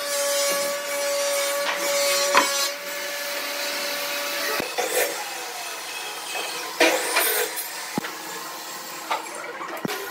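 Wooden marking gauge scratching along the edge of a pine board in repeated rasping strokes, then pencil scribbling on wood, with a few sharp clicks of tools set down. A faint steady hum runs underneath and stops about halfway through.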